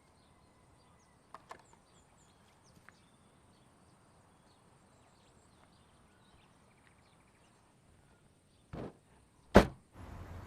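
Quiet background with faint high chirps and a few light clicks, then two sharp thumps close together near the end, the second much louder.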